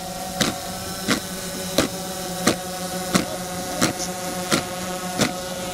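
A squad drilling in unison, its sharp beats landing together about once every 0.7 seconds, over a steady electrical hum.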